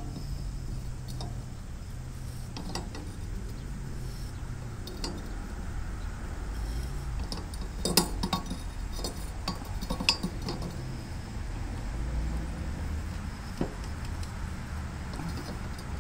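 Metal clinks and taps of channel-lock pliers working on a Gravely tractor's muffler and exhaust fitting, scattered and irregular, the loudest about halfway through, over a low steady hum in the background.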